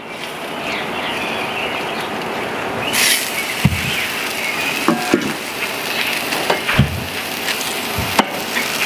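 Thick ribeye steak sizzling on the hot grate of a Weber kettle charcoal grill, a steady hiss, with several metal knocks and scrapes as the grill press is lifted off and a meat fork works the steak.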